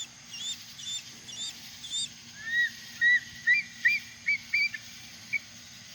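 An unseen bird in the trees calling a rapid series of short, arched chirping notes: a higher run first, then a lower, louder run at about three notes a second. Crickets trill steadily behind it.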